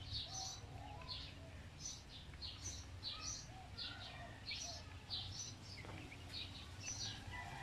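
Young silkie chickens peeping: faint, repeated short high chirps, about two a second, over a steady low rumble.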